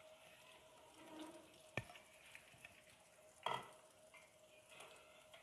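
Sliced onions frying faintly in hot oil in a steel pan, a low sizzle. There is a sharp click a little under two seconds in and a brief louder knock of a utensil about three and a half seconds in.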